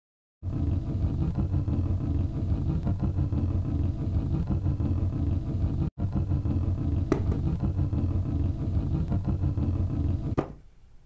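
Steady, low engine-like rumble, a sound effect on an animated soundtrack. It drops out for an instant about six seconds in and cuts off suddenly near the end.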